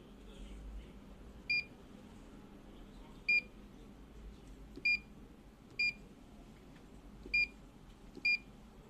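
Earthquake alarm unit giving six short, identical high-pitched beeps at uneven intervals, about one to two seconds apart.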